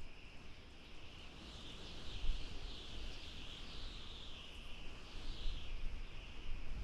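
Outdoor ambience: a continuous high, wavering chirring that swells and fades, with a low rumble underneath.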